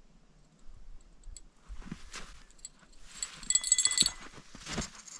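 Small bite bell on a fishing rod tip jingling as a fish takes the bait: a few faint tinkles about a second in, then a brief bright ringing past three seconds in. Soft knocks and scuffs follow as the rod is swept back to set the hook.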